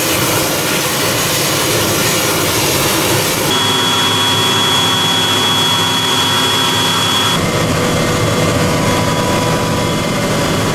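EH-101 Merlin helicopter's turbine engines and rotor running, a loud steady noise with a high, steady turbine whine. The sound changes abruptly about three and a half seconds in and again about seven seconds in, as the listening point moves from outside the helicopter to inside the cockpit and then to flight.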